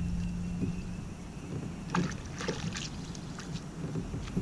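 Lake water splashing lightly as a hand is dipped and rinsed beside a kayak. A short cluster of splashes and knocks comes about two seconds in.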